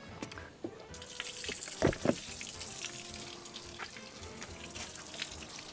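Grey water draining from a Frankia motorhome's waste-tank outlet, pouring in a steady stream and splashing onto the pavement from about a second in. A couple of short knocks come about two seconds in.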